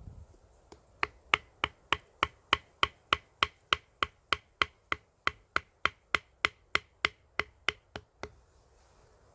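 A steady run of about two dozen sharp knocks, roughly three a second, each with a brief ringing tone, like a hard tool striking wood or a peg. They start about a second in and stop shortly before the end.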